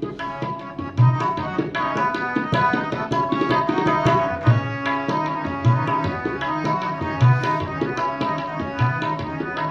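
Tabla playing a steady rhythm with deep bass-drum strokes, over sustained harmonium chords: the instrumental accompaniment of Sikh keertan.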